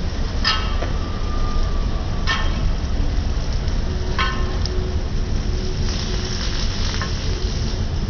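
Parottas frying on a large flat griddle with a steady sizzle over a low rumble. A metal spatula clinks against the griddle a few times, each clink ringing briefly.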